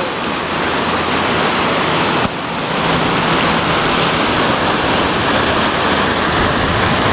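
Whitewater rapid rushing: a loud, steady wash of turbulent river water.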